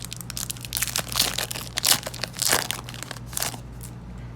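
Foil wrapper of a Yu-Gi-Oh! booster pack crinkling as it is opened by hand, a rapid run of crackling rustles that dies down near the end.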